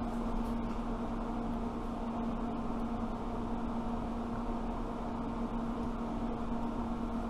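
Steady mechanical hum with one constant low tone, like a running fan or motor, unchanged throughout.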